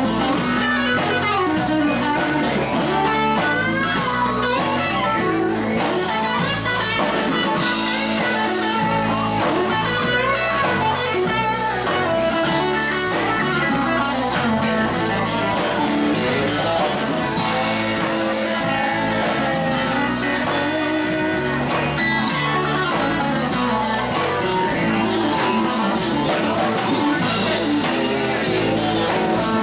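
Live band playing an instrumental passage on electric guitars, bass guitar and drums.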